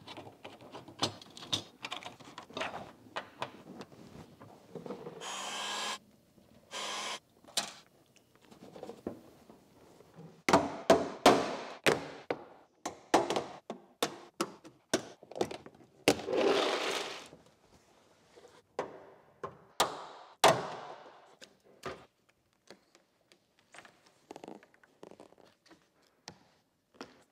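Tesla Model Y trim being taken off by hand: a long series of sharp clicks, snaps and knocks as a screwdriver backs out licence-plate screws and a plastic pry tool pops trim clips loose, with short scraping sounds between them.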